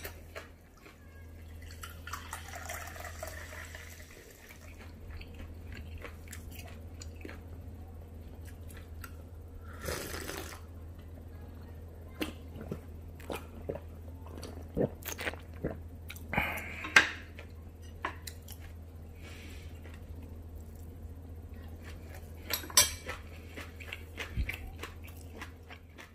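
Close-up eating sounds: chewing, with a metal spoon clicking and scraping against a ceramic plate at irregular moments, over a steady low hum.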